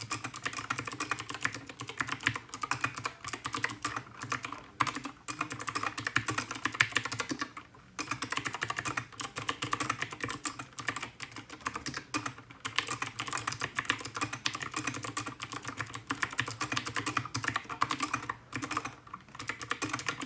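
Typing on a GK61 mechanical keyboard with clicky Gateron Blue switches: a rapid, continuous stream of key clicks with a few brief pauses.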